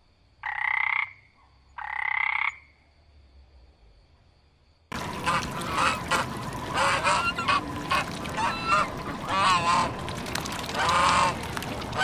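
A monkey frog gives two short calls, the first about half a second in and the second about two seconds in. About five seconds in, the sound switches abruptly to a flock of mute swans and ducks on the water, calling again and again over a steady background noise.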